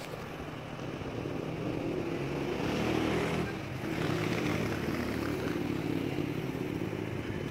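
Street traffic heard from a rooftop: a road vehicle's engine hums, growing louder to about three seconds in, dipping briefly, then running on.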